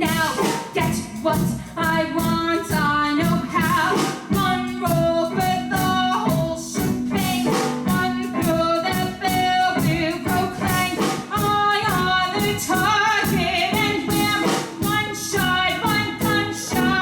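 Up-tempo show-tune music played live by a band, with a strong melody line carried over quick, punchy accompaniment hits.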